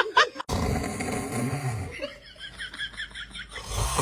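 A person snoring: one long rumbling snore starting about half a second in, and another beginning near the end. Between them comes a quick run of short, high-pitched sounds.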